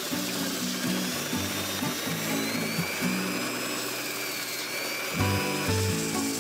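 Background music over the steady high whine of a drill press driving a homemade belt sander, running as a small piece of wood is fed against the sanding belt.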